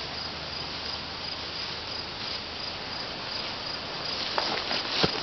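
Crickets chirping in a steady, high-pitched pulse, with a few faint clicks near the end.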